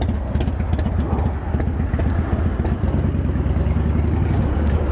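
A motorcycle engine idling with a steady low rumble and faint ticking.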